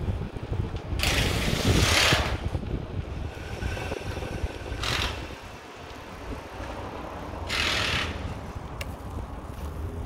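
Wind buffeting the microphone of a phone held out on a moving bicycle, over a steady low rumble, with three rushing bursts of noise: one about a second in lasting over a second, a short one near five seconds and another near eight seconds.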